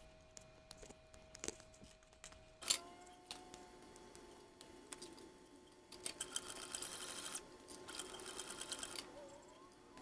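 Heavy industrial leather sewing machine stitching in two short runs of rapid ticking, each a second or so long, over a steady motor hum, with scattered clicks before them.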